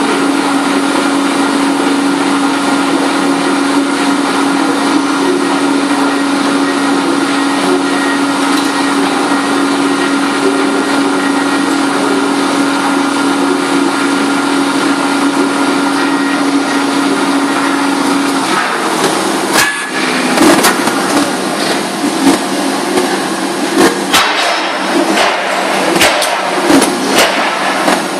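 Steady mechanical hum of a paper-trimming machine with a held tone, which stops about two-thirds of the way through. After that come irregular knocks and slaps as stacks of paper are moved and squared on the machine's table.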